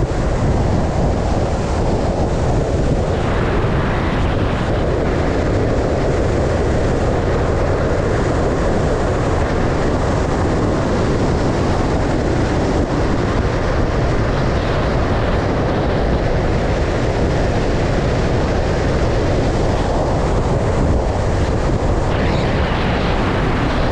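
Steady rush of wind on the microphone and road noise from a vehicle travelling at speed, without letup.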